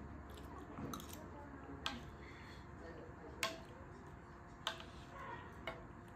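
A metal spoon clinking against a plate as food is scooped, several sharp clicks about a second apart.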